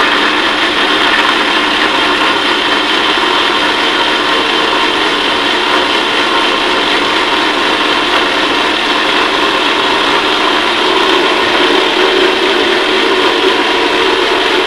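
Sun personal nutri blender's motor running steadily at full speed, its blade whirring chopped fruit and milk into a thick shake.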